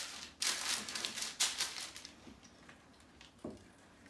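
Baking paper rustling and crinkling under hands as it is pressed flat on a tray, in several bursts over the first two seconds, then fading to faint handling noise with a light knock near the end.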